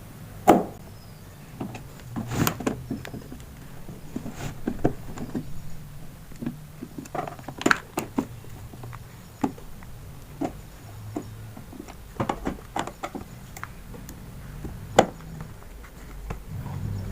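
Irregular clicks, taps and knocks of a screwdriver and a plastic battery sprayer being handled while the screws on its underside are taken out, with a few louder knocks now and then.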